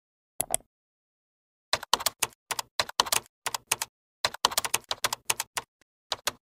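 Computer keyboard typing: two keystrokes about half a second in, then a quick run of key clicks from about two seconds in, with short pauses between bursts.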